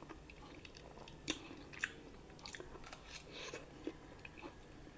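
Faint, close-up chewing and mouth sounds of a person eating noodles, with scattered short wet smacks and clicks, the sharpest about a second and a half in and just under two seconds in.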